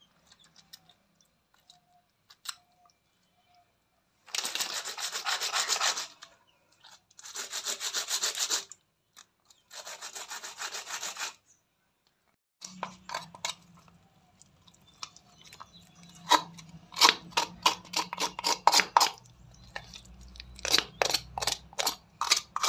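Murrel fish being cleaned on a rough stone surface: three long rasping scrapes of about a second and a half each, then a run of sharp knife taps and short scrapes against the fish and a wooden board.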